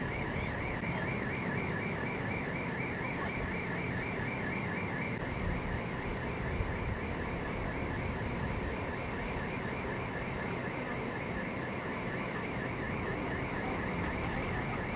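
Electronic alarm tone warbling rapidly up and down, about four times a second, without pause, over steady traffic noise.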